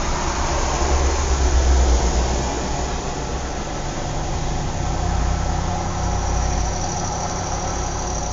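Outdoor suburban ambience: a steady low rumble of motor traffic, swelling as a vehicle passes closer about a second in. A faint high-pitched whine joins near the end.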